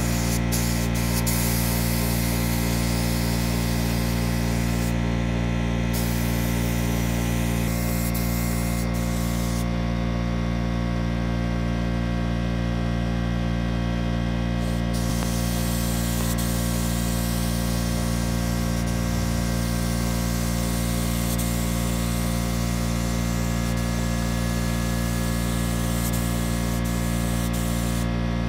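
Compressed-air gravity-feed paint spray gun hissing as it sprays automotive basecoat in passes, the hiss easing off briefly a few seconds in and for several seconds in the middle, over a steady many-toned hum.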